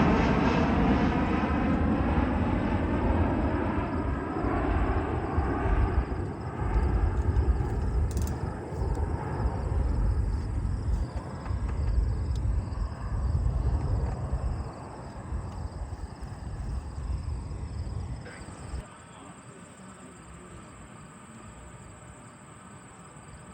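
Twin CFM56 turbofan engines of a Boeing P-8A Poseidon jet passing and receding. It is a falling jet rumble that fades gradually and then drops away suddenly near the end.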